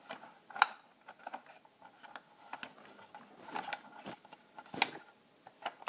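Small plastic clicks and knocks as a toy saddle is stowed in the side compartment of a plastic toy horse trailer and the compartment door is shut. The sharpest clicks come about half a second in and near the five-second mark, with soft rustling of handling between them.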